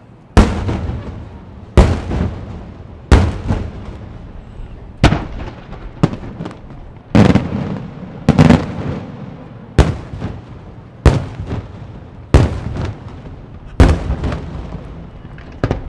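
Aerial fireworks shells bursting overhead: a loud report about every second and a half, around a dozen in all, each followed by a rumbling echo that dies away.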